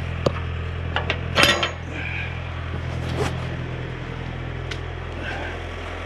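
Diesel tractor engine idling steadily under a few sharp metallic clicks and clanks. The loudest clank comes about one and a half seconds in, and a smaller one just after three seconds.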